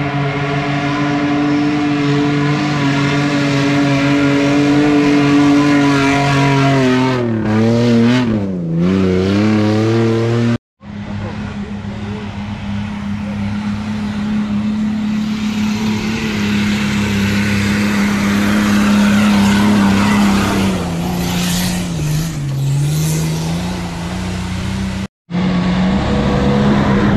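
Off-road 4x4 engines running hard at steady high revs, the pitch sagging and picking up again twice as the vehicle labours over the terrain. The sound cuts off abruptly twice, at about ten seconds and again near the end, where one clip gives way to the next.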